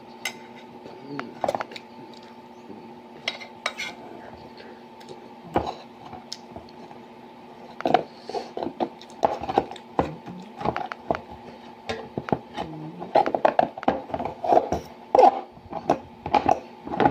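Cutlery clinking and scraping against dishes while eating noodles and rice, in irregular clusters of clicks that grow busier about halfway through, over a faint steady hum.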